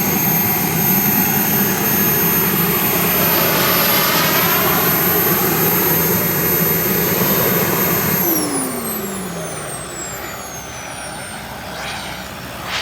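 Radio-controlled model jet's turbine engine running, a steady high whine over a jet rush. About eight seconds in, the whine falls in pitch and the sound fades as the jet moves away.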